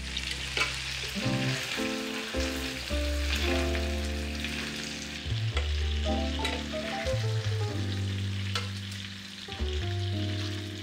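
Chicken thighs sizzling in butter and oil in a frying pan, with a few sharp clicks as metal tongs turn them. Background music with low held notes plays underneath.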